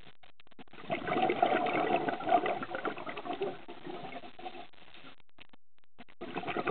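Scuba diver's exhaled bubbles gurgling out of the regulator underwater: a burst of about three seconds starting about a second in that trails off, then another starting near the end.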